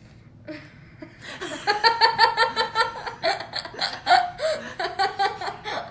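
A woman and a boy laughing hard together in rapid ha-ha bursts, starting about a second in.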